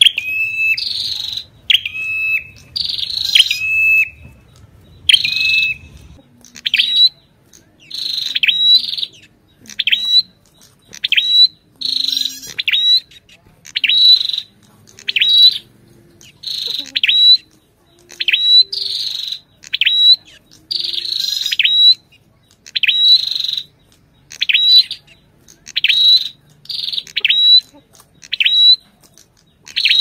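Ashy tailorbird song: loud, sharp whistled notes repeated about once or twice a second, some in quick pairs. For the first few seconds each note ends in a held lower whistle; after that they are short, clipped slurs.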